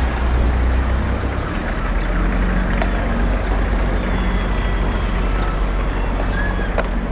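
Steady low rumble under an even hiss, outdoor noise with no clear single event; a faint steady hum joins in about two seconds in.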